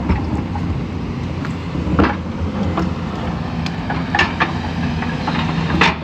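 Excavator's diesel engine running steadily, with sharp clanks about two seconds in, twice just past four seconds, and a loud one near the end.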